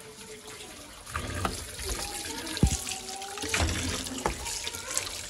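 Tap water running into a stainless steel kitchen sink as potatoes are rubbed clean by hand under the stream, with a few sharp knocks as they bump the sink.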